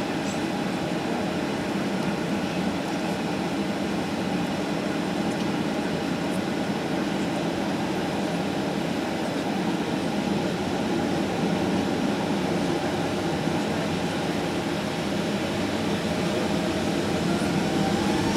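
Steady rumble and hiss of a jet airliner heard from inside the passenger cabin, engines running low on the ground. Near the end a rising whine begins as the engines spool up.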